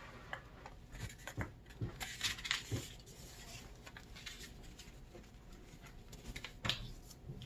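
A sheet of printer paper being folded and creased by hand: soft rustling with scattered crisp crinkles, busiest in the first few seconds and again near the end.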